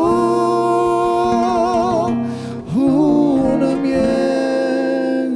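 A man's voice holding a long sung vowel with vibrato, breaking briefly about two seconds in and then holding a second long note, over an acoustic guitar played with the fingers.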